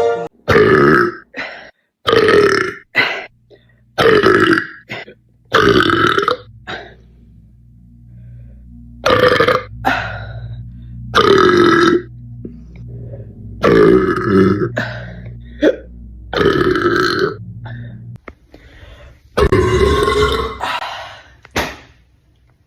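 A woman belching over and over: about nine long, drawn-out burps a couple of seconds apart, with short clicks between some of them and a low steady hum under the middle stretch.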